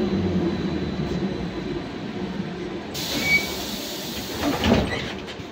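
Trolza-5275.07 Optima trolleybus drawing to a stop, its electric drive hum fading away. About three seconds in comes a sudden hiss of compressed air, then a couple of clunks near the end as the pneumatic doors open.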